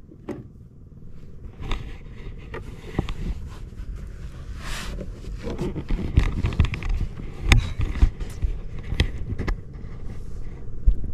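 Scattered knocks and clicks from handling on a wooden outrigger fishing boat over a steady low rumble, with a brief hiss about five seconds in.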